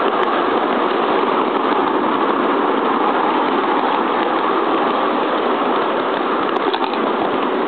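7¼-inch-gauge 2-4-2 tender steam locomotive running, heard from the carriage just behind it: its chuffing exhaust and the wheels on the rails blend into one steady noise.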